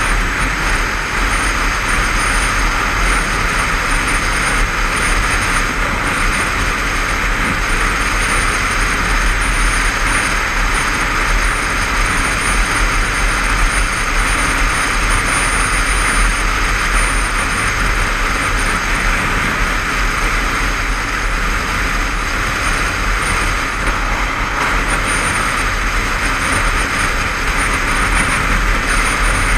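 Steady wind rush and road noise on a helmet-mounted camera at motorway speed, over the steady running of a Honda CBF500's parallel-twin engine.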